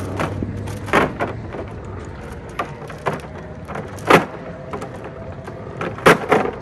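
Steel anchor chain being hauled up out of the water by hand over the edge of a dock, its links clanking in several sharp, irregular clanks, the loudest about four seconds in and again near the end.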